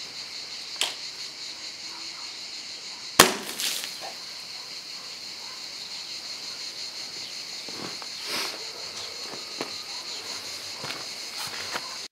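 A water balloon bursts with one sharp pop about three seconds in, followed by a brief splash. Insects buzz steadily at a high pitch throughout, and a few fainter clicks come and go.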